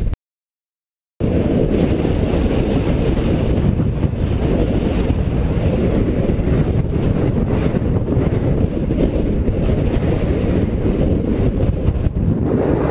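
Strong wind buffeting an action camera's microphone: a loud, steady, dense rumble. It drops out to dead silence for about a second near the start.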